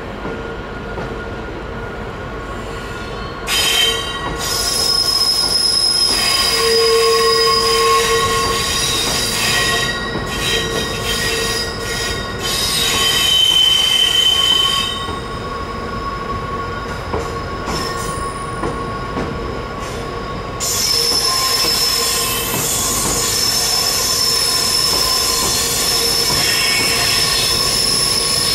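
Train wheels squealing on the rails as a train runs slowly past, several high steady squeal tones over the rumble of the wheels. It gets louder a few seconds in, eases off midway and comes back strongly about twenty seconds in.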